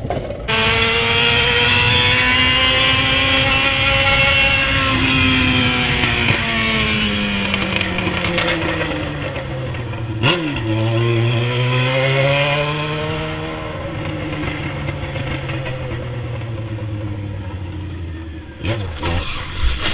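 Yamaha motorcycle engine heard from the rider's seat, its pitch rising and falling with the throttle, with a quick dip and recovery about ten seconds in like a gear change, then slowing with a falling pitch. Near the end come several sharp knocks and loud bursts.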